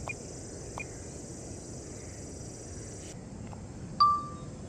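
Crickets chirring as a steady high hiss that stops about three seconds in, with a couple of faint ticks. About four seconds in, a single short electronic beep sounds as the drone is switched on.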